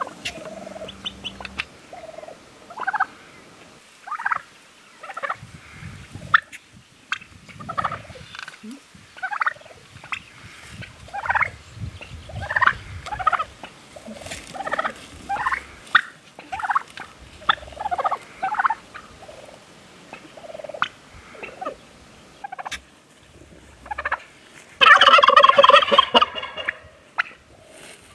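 Domestic turkeys calling with a string of short clucks and chirps. Near the end, a tom gives one loud gobble lasting about a second and a half.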